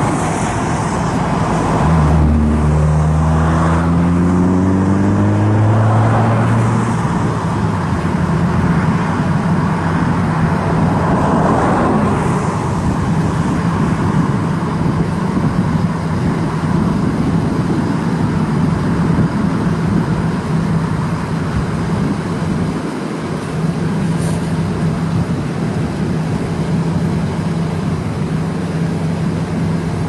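Road vehicle driving: the engine note climbs as it speeds up between about two and seven seconds in, then holds steady over continuous road noise.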